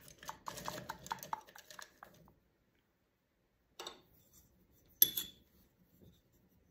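Sculpting tools handled on a work table: a quick run of light clicking taps for about two seconds, then quiet, then one sharp clink a little after halfway as a tool is set down.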